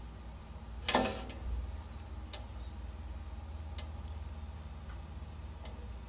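Putty knife clicking and scraping against a refrigerator's aluminium evaporator panel as epoxy putty is spread over a leak: one loud scrape about a second in, then three faint ticks, over a steady low hum.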